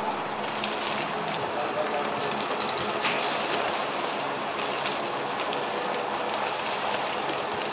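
Steady background hiss of a room with a few faint clicks, one about three seconds in and another a little later.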